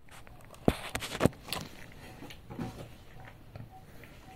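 A few light clicks and knocks, most of them between about half a second and a second and a half in, over faint room noise.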